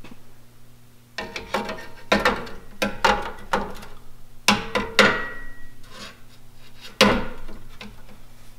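Irregular knocks and clanks of a spirit level being set against a Power-Pole shallow-water anchor, and of the loosely bolted pole being shifted in its bracket while it is levelled. About nine knocks, the loudest about five and seven seconds in; the one near five seconds leaves a brief ringing tone. A steady low hum runs underneath.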